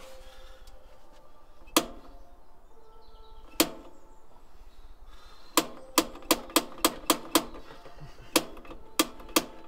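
Sharp metallic clicks, each with a brief ring: two single clicks a couple of seconds apart, then a quick uneven run of about three clicks a second, with a short pause partway through.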